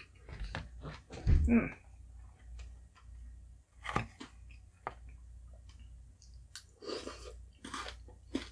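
Close-up chewing and mouth sounds of eating halo-halo (shaved ice, ice cream and jellies), with a metal spoon clicking and scraping in a plastic bowl. The sounds come as short, scattered clicks and scrapes, loudest a little over a second in.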